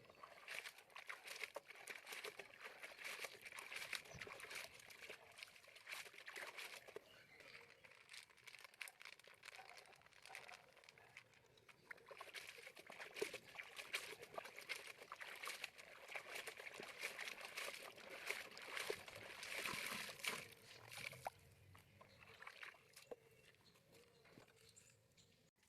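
Faint water sloshing and trickling with small splashes, as of towels being washed in water; it grows a little louder for a couple of seconds past the middle, then dies down near the end.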